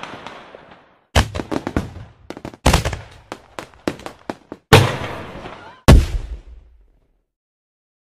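Fireworks going off: four loud bangs, each followed by crackling that dies away, the last two the loudest. The sound ends about seven seconds in.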